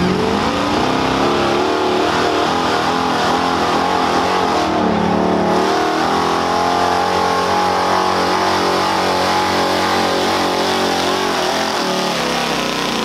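Gas big-block V8 of a GMC pickup running at high revs under full load while pulling a weighted sled, its engine note wavering up and down.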